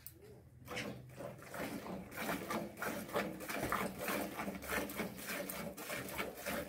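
Hand-milking a cow: rhythmic squirts of milk from the teats into a bucket, a few strokes a second, starting about a second in.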